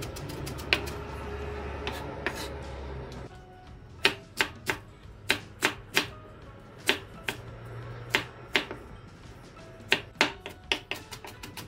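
Chef's knife mincing onion and green onion on a wooden cutting board: irregular sharp knocks of the blade on the wood, a few a second, over background music.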